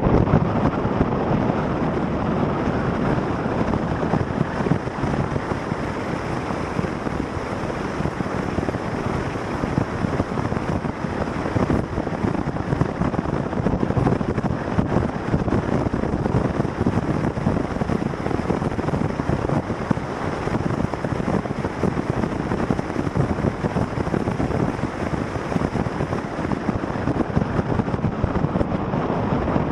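Steady rushing wind buffeting the microphone of a camera riding on a moving vehicle, blended with the vehicle's own running noise.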